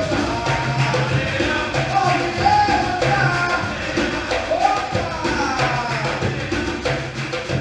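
Percussion group playing a Bahian-style drum rhythm, with low drums beating a repeating pattern and voices singing over the drums.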